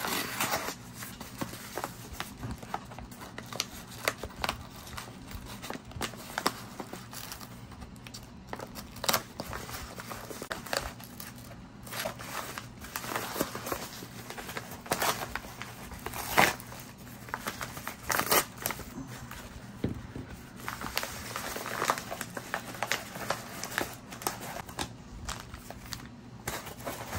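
Yellow kraft paper mailer being slit with a knife, then crinkled and torn open by hand in a run of irregular crackles, followed by plastic coin bags and flips rustling as they are pulled out near the end.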